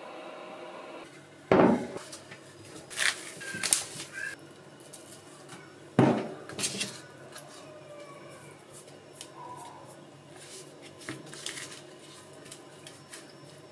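Kitchen prep handling noises while raw chicken wings are set up for seasoning on a wooden cutting board: two sharp knocks, about a second and a half in and about six seconds in, are the loudest, with lighter clicks and taps between and after.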